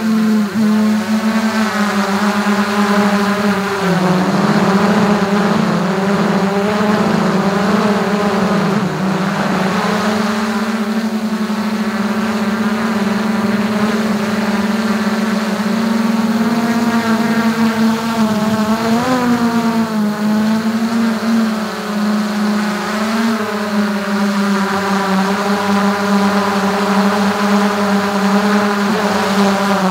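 DJI Mavic 2 quadcopter's propellers and motors buzzing loudly, heard close up from a camera mounted on top of the drone. It is a steady whine whose pitch dips a few seconds in and again near the ten-second mark, then rises briefly a little past the middle, as the drone manoeuvres.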